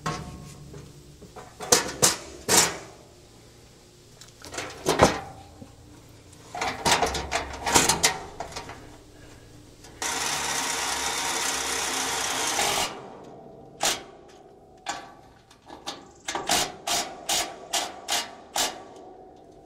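Hand-tool knocks on the mower's steel, then a welder laying a short weld bead: a steady hiss that starts suddenly about ten seconds in and stops about three seconds later. It is followed by a quick run of about ten sharp taps.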